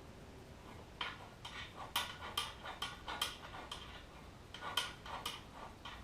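Light metallic clicks and clinks, a dozen or so at an uneven pace, from hand tools and metal parts being handled while taking a scooter apart.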